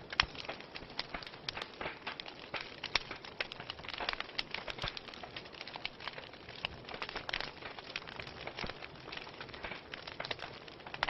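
Wood fire burning in a fireplace, crackling with irregular sharp pops over a soft steady hiss. A louder pop comes just after the start.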